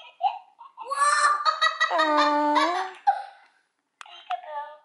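A person's drawn-out, high-pitched laughter: two long held cries with wavering pitch, then cut off sharply about three and a half seconds in.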